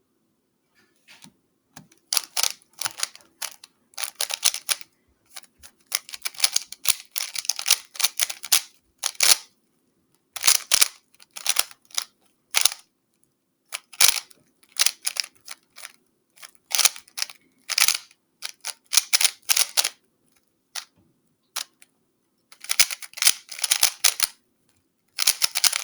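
Plastic 3x3 Rubik's Cube being turned fast in a speedsolve: rapid clattering clicks of the layers in bursts, with short pauses between them, starting about a second in.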